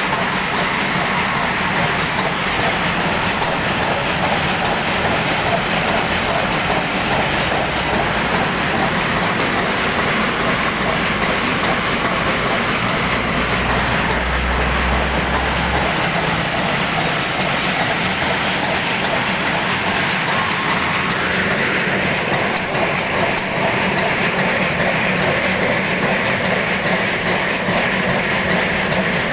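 Two-tier peanut sorting machine running steadily, with a continuous mechanical clatter. A deeper low hum swells briefly about halfway through.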